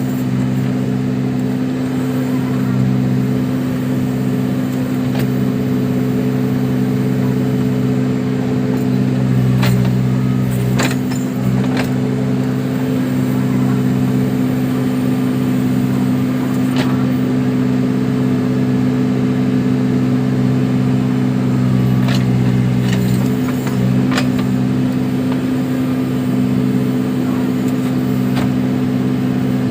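Case 580 Super backhoe loader's diesel engine running at a steady working speed, with a few sharp knocks from the machine about ten seconds in and again later.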